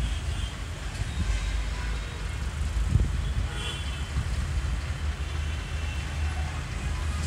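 Low, steady rumble of a WDM3D diesel locomotive drawing a train slowly toward the listener, with a single knock about three seconds in.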